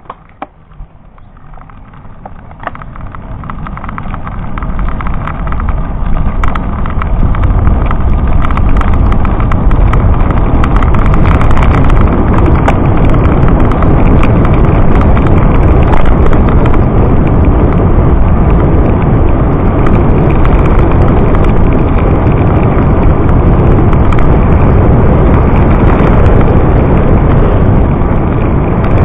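Wind rushing over the microphone of a camera on a moving road bicycle. It builds over the first several seconds as the bike picks up speed, then holds loud and steady.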